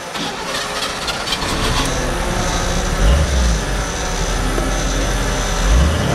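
GMC tow truck's engine running, a low rumble that builds and grows louder from about a second and a half in, with deep surges of revving around the middle and near the end.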